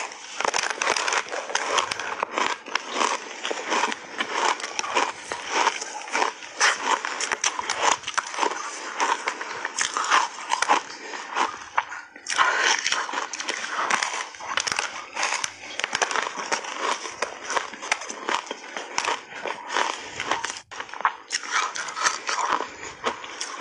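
Crunching and chewing of a frozen matcha ice slab coated in milk powder, bitten off in big bites: dense, continuous crackling with a short pause about halfway.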